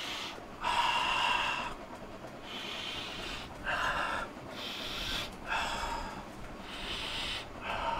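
A man sniffing deeply and breathing in and out while smelling a brand-new camera body. There are about seven separate rushes of breath, roughly one a second.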